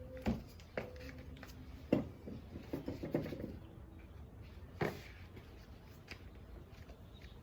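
Objects being handled and rummaged through: scattered knocks and clicks, the sharpest about two seconds in and again near five seconds, with a quick cluster of small knocks in between.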